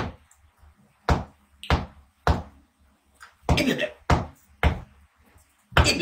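A run of sharp knocks or thumps, one roughly every half second to second, with a denser cluster of them a little over three seconds in.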